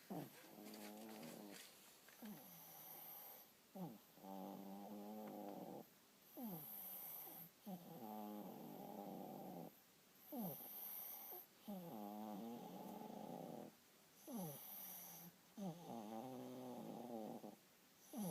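A sleeping pet snoring in a steady rhythm, one buzzing snore of about a second and a half roughly every four seconds, about five in all.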